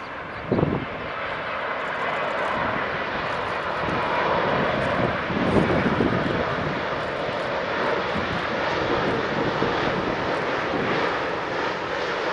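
Boeing 787-8 Dreamliner on final approach, its Rolls-Royce Trent 1000 turbofans making a steady jet rumble and hiss that grows louder over the first few seconds as the aircraft comes closer, then holds. A brief thump about half a second in.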